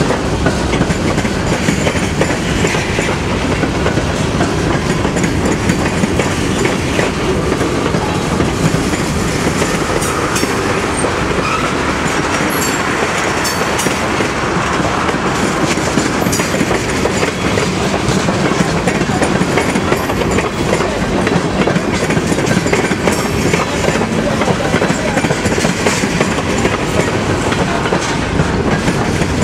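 Freight train's covered hoppers and tank cars rolling past close by, a loud steady rolling noise of steel wheels on rail with scattered clicks.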